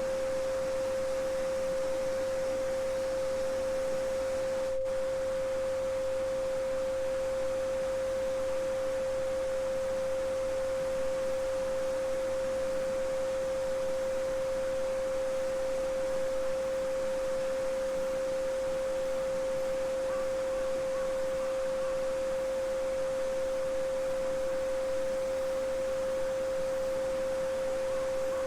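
A steady pure tone at 528 Hz (the solfeggio frequency), held unchanged, over the soft babbling of a small stream.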